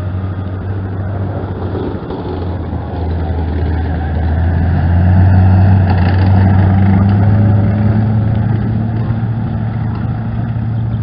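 Engine of a historic military half-track running steadily as the vehicle drives past. It grows louder toward the middle and then eases off.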